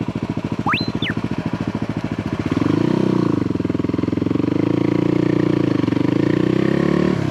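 Motorcycle engine running on the move, a steady pulsing note that grows louder and rises as the throttle opens about two and a half seconds in, then holds steady with a brief drop near the end.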